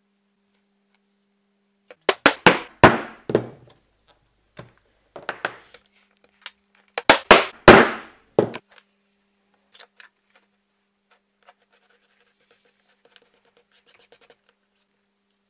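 Mallet striking a metal leather stamping tool into leather. Several sharp knocks come in quick runs: a fast run of about five, a few more, then another fast run of about five, followed by a few light taps.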